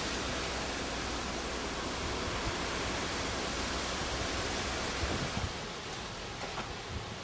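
Steady, even hiss of outdoor background noise, with no clear single source, becoming a little quieter about five and a half seconds in.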